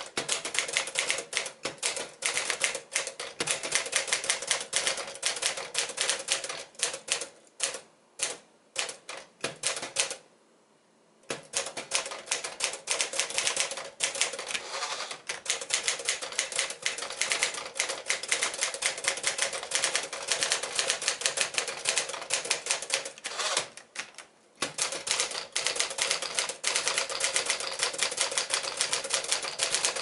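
1958 Smith-Corona Sterling manual portable typewriter being typed on at a brisk pace, its keys and typebars clacking rapidly. There are brief pauses about ten seconds in and again near the 24-second mark.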